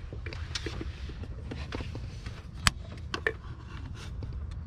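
Scattered clicks, taps and scrapes of hand tools and metal parts being handled in an engine bay, with one sharp click about two and a half seconds in, over a steady low rumble.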